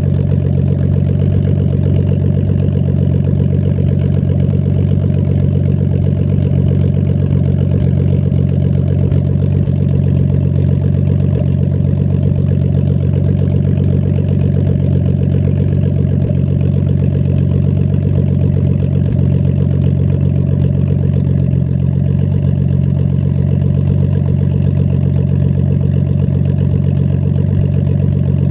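Nissan Skyline R32's RB20DET turbocharged 2.0-litre straight-six idling steadily. The owner suspects a slight idle misfire.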